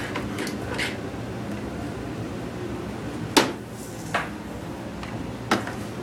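Three sharp plastic-sounding clicks and knocks in the second half, from an extension cord and plug being handled, over a steady low hum.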